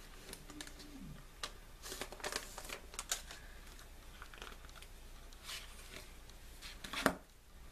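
Paper and plastic CD packaging being handled and pulled apart: light rustling and crinkling with scattered small clicks, and one sharper click near the end.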